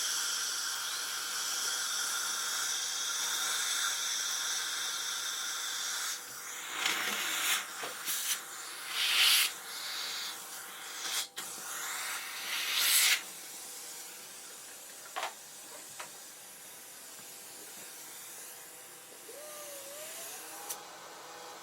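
Dentist's drill: a steady high-pitched whine for about the first six seconds, then several short, loud hissing bursts, then quieter, with a tone that glides up and holds near the end.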